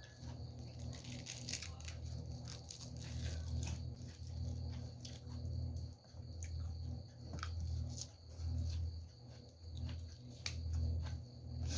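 Close-up chewing of crisp raw vegetables and pounded winged-bean salad: irregular crunchy crackles over low, muffled, rhythmic jaw and mouth sounds.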